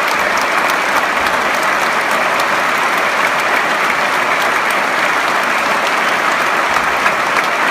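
A large audience in a concert hall applauding: dense, steady clapping without a break.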